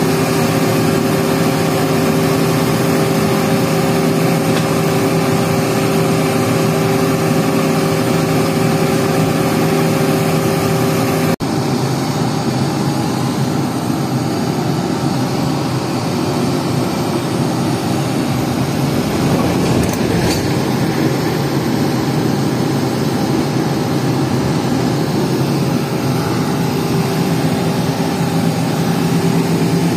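Engine of heavy construction machinery running steadily. It breaks off abruptly about eleven seconds in and carries on with a changed engine note.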